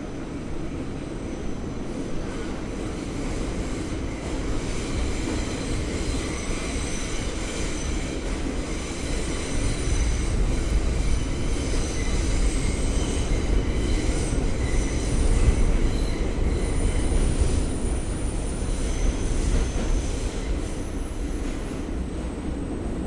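New York City subway train running on the rails: a steady low rumble with high, thin wheel squeal on the track, growing louder through the middle and easing off near the end.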